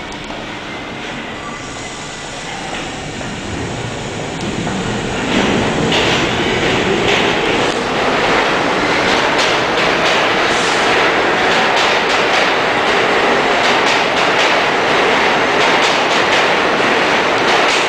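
New York City subway train running past an underground platform. The train noise swells about five seconds in and stays loud, with a rapid clatter of steel wheels over the rails.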